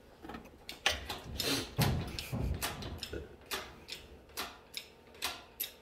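Engine hoist and its lifting chain working a small-block Chevy 350 out of the truck: irregular metallic clicks and knocks, a few a second, with a heavier thump about two seconds in.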